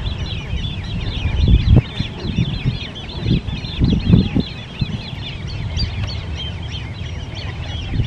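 Great crested grebe chicks calling: a rapid, overlapping series of short, high piping notes, several a second without a break, of the kind chicks make when begging from a parent. A few low thuds, loudest about one and a half and four seconds in, sound beneath the calls.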